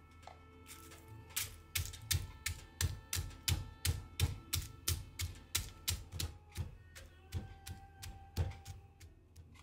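Stone pestle pounding nuts in a stone mortar, crushing them: a regular run of dull knocks, about three a second, starting about a second in and stopping near the end. Soft background music plays under it.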